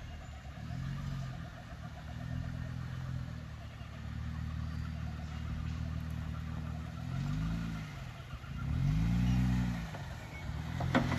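Four-wheel-drive vehicle's engine revving up and falling back in a series of surges, loudest about nine seconds in, as it is driven slowly over rough ground.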